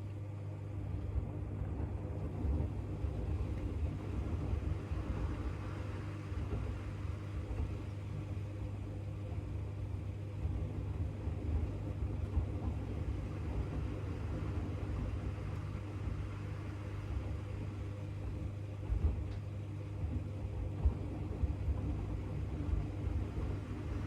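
AEG LR8FL160EX front-loading washing machine running with a steady motor hum. Irregular low thuds and rumbling start about half a second in as the drum turns the load of bath mats.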